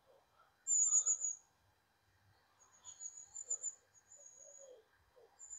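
High, thin trilling calls of a small bird in the bankside trees, four fluttering bursts about a second long each.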